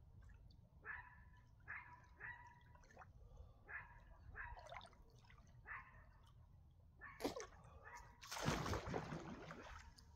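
A dog yips repeatedly in short calls, about one a second. About seven seconds in, water splashes briefly, then splashes louder for over a second, over a low steady rumble.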